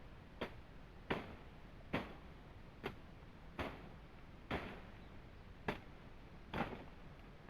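Steady series of sharp knocks, about one a second, some with a short ringing tail: tool blows in steady work on bamboo.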